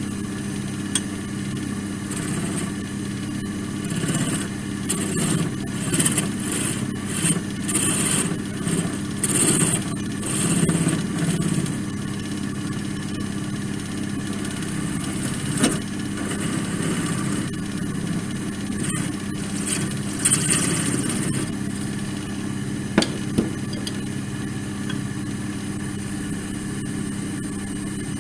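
Wood lathe running with a steady motor hum while a parting tool cuts into the spinning laurel-wood blank, taking off the top edge of the mushroom cap. The cuts come as a string of short scraping bursts through the first half, then again briefly about twenty seconds in, with a couple of sharp clicks in between.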